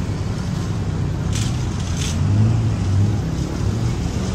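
Steady low motor rumble, with two short hisses about one and a half and two seconds in.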